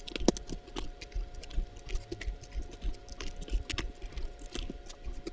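Small screwdriver driving the black screws that hold a Topre keyboard's PCB to its plate: irregular light clicks and ticks of the tool and screws on metal and plastic, with one sharper click near the start.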